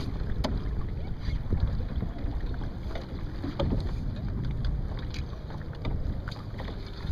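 Wind buffeting the microphone aboard a small Scorpion sailing dinghy under way, with water washing along the hull. Scattered light clicks and knocks come through the steady rumble.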